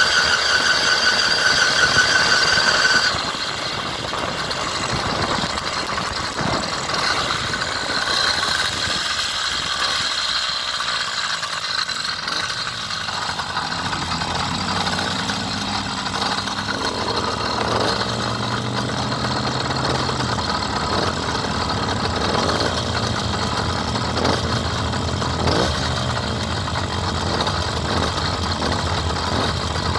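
Road traffic at an intersection: engines idling and vehicles passing, with a low steady engine hum through the middle. A steady high whine in the first three seconds stops suddenly.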